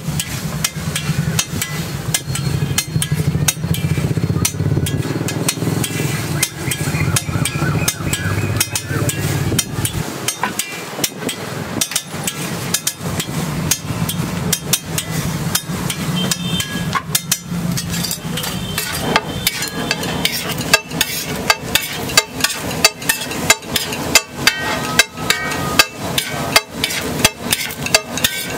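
Metal spatula clanking and scraping on a large flat iron griddle as a heap of egg fried rice is chopped and tossed; the strikes come faster and louder in the last third. A low rumble runs under the first half.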